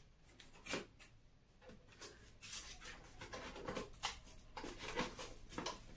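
Faint rustling and scraping of cardboard and packing material as hands rummage inside a cardboard box, mostly in the second half.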